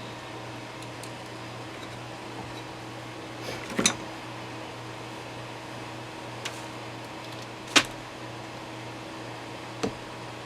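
A few sharp clicks and taps from hand tools working the wiring of a vintage tube radio chassis, the loudest about eight seconds in, over a steady background hum.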